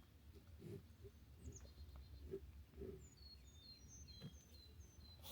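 Faint chirping of small birds: many short, high notes, each slurring quickly in pitch, repeated throughout over a low rumble. There are a few soft thumps about a second and two to three seconds in.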